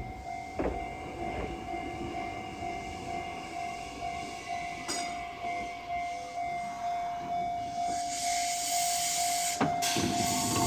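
Ex-Tokyo Metro 01 series electric train pulling into a station and slowing to a stop, with a steady whine over the running noise that grows louder as it nears. From about eight seconds in, a loud hiss of air comes in as it stops.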